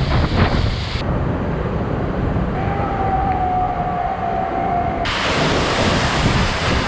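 Continuous rushing roar of a waterfall's spray and wind buffeting an action camera's microphone. The sound turns dull and muffled from about a second in until near the end, when a thin steady tone is also heard.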